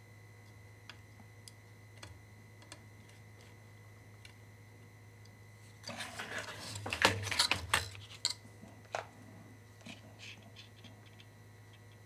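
Isolated small clicks of handling, then about six seconds in a short flurry of knocks, taps and rustling lasting a couple of seconds as a multimeter circuit board in its plastic case is turned and set down flat on a rubber work mat. A faint steady electrical hum runs underneath.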